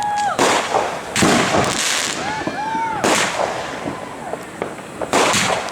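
Consumer fireworks going off: four big blasts spread over a few seconds, with crackling between them.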